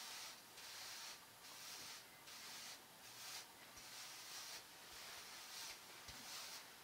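Faint, rhythmic swishing of a boar-bristle hairbrush drawn through hair set with pomade, about two strokes a second.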